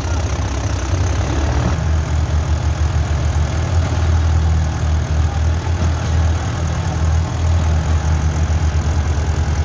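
Diesel engines of a Mahindra Yuvo tractor and a Kubota tractor running hard with a steady low throb, hauling a combine harvester stuck in deep mud.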